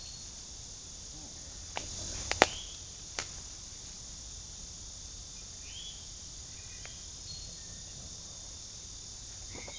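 Steady high-pitched insect chorus outdoors, with four sharp clicks or snaps about two to three seconds in, the loudest at about two and a half seconds, and a few short high chirps later on.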